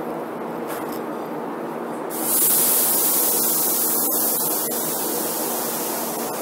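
Korail 1000-series electric train hissing loudly with escaping compressed air from about two seconds in, over the steady hum and rumble of the train, as it begins to pull away. The hiss fades slowly.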